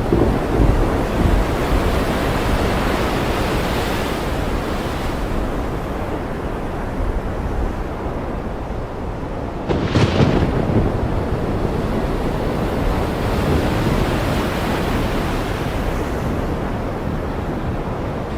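Ocean surf washing in a steady rushing noise that swells and eases, with a low rumble underneath. About ten seconds in comes a sudden louder crash.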